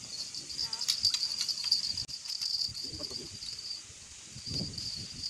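Insects chirring: a steady, high, pulsing buzz that breaks off briefly about four seconds in and then starts again.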